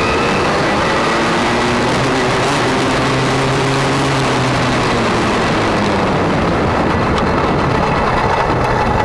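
Motocross bike engine running on a dirt track, its pitch rising and falling with the throttle, over a constant rush of noise.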